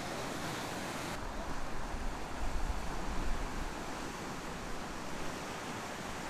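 Ocean surf breaking and washing, a steady rushing noise, with low wind rumble on the microphone in the first half.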